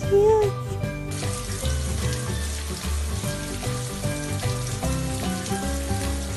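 Background music with a bass line, joined about a second in by a steady hiss.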